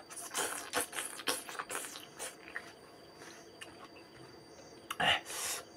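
Close-up eating sounds of a man eating rice and fish with his fingers: wet lip smacks, finger-sucking and chewing, coming quickly in the first couple of seconds and then thinning out. About five seconds in there is a louder, breathy sniff-like noise.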